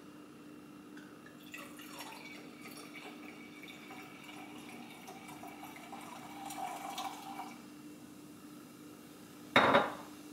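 Prosecco poured from a small glass bottle into a wine glass, a fizzing trickle lasting about six seconds. Near the end the bottle is set down on the stone countertop with a sharp knock, the loudest sound.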